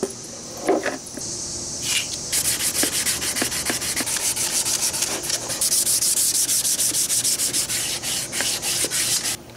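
220-grit sandpaper dry-sanding a plastic taillight lens and its epoxy crack repairs with fast, rhythmic back-and-forth strokes, smoothing out coarser 120-grit scratches. The scratching starts about two seconds in and stops abruptly near the end.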